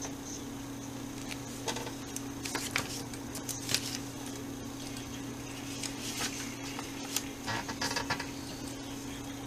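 Papers rustling and light handling clicks at a desk, coming and going in short clusters, over a steady low electrical hum.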